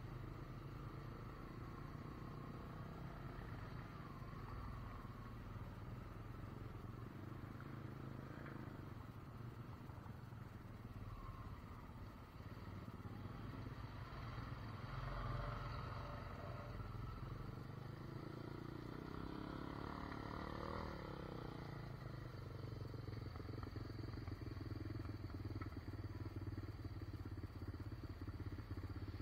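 Honda Rancher ATV's single-cylinder engine running at low speed through mud and standing water, with the engine note rising and falling for a few seconds around the middle as it is given more throttle.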